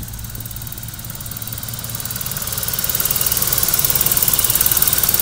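Old BMW saloon's engine idling just after being started, with a fast, even ticking clatter over the low running note; it grows louder from about two seconds in.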